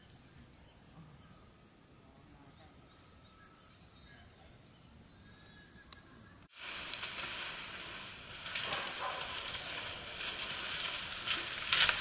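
Faint steady high-pitched insect calls at dusk, then, after a sudden cut, louder rustling and scuffing with scattered crackles as a group of wild elephants walks along a paved road.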